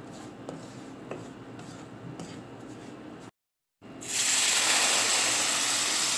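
Wooden spatula stirring and scraping toasting semolina in a nonstick pan. After a brief break about four seconds in, water is poured into the hot pan and hisses loudly as it sizzles and steams.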